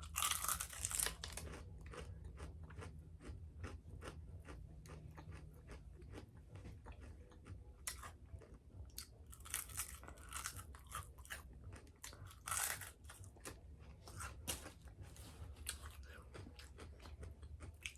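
Close-up biting and chewing of crispy fried chicken. A loud crunch of the breading comes right at the start, with more crunchy bites about eight, ten and twelve and a half seconds in, and steady chewing in between.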